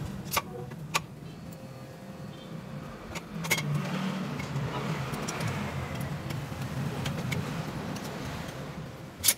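Metal tool clinks from a screwdriver working on a scooter's stainless center stand fittings: a few sharp clicks, the loudest near the end. They sit over a steady low rumble like a vehicle running.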